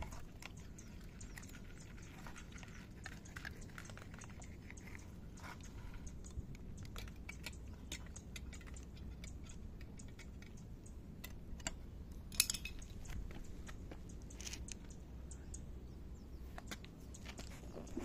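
Cats eating: small irregular crunches and clicks of dry kibble being chewed, along with a cat lapping milk from a bowl, over a low steady background rumble.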